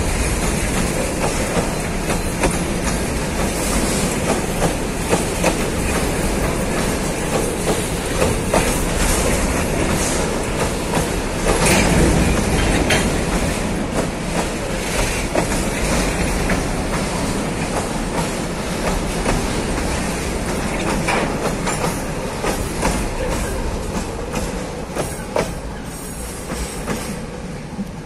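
Empty freight wagons, boxcars and hopper cars, rolling past close by: steel wheels clacking and knocking over the rail joints amid a steady rumble and rattle. The sound eases off over the last few seconds as the final car moves away.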